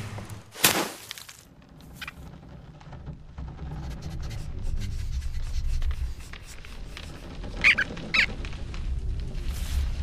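Cartoon sound effects: a sharp hit just after the start, then a low rumble that slowly builds, with two short high squeaks from a cartoon rodent about eight seconds in.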